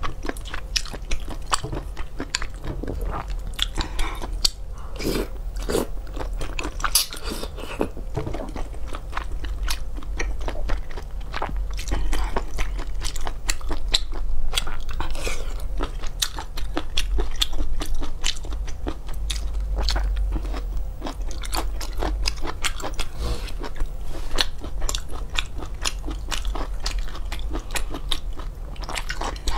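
Close-miked person chewing and biting seafood such as baby octopus, with many quick wet smacks and crunchy clicks in an irregular stream. A steady low hum runs underneath.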